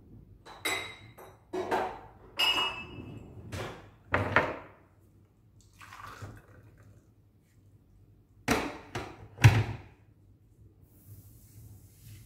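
Dishes and glassware clinking and clattering as they are handled. Near the end come two loud thunks about a second apart.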